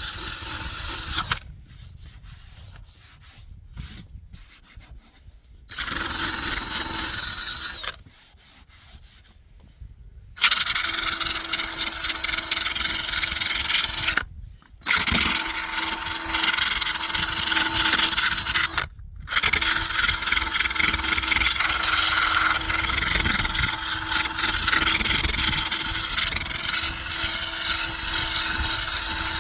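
Power sander running against a cured epoxy and chopped-strand-mat fiberglass repair. It stops and starts: two breaks of a few seconds in the first ten seconds, and two brief ones later.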